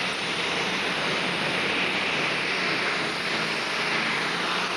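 Diesel super stock pulling tractor's engine running at full throttle under load during a pull, a steady roar.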